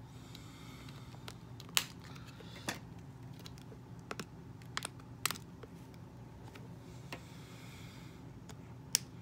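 Small cutters snipping the plastic ties that hold doll accessories in their packaging: a series of sharp, irregularly spaced snips, with faint crinkling of the plastic wrap between them.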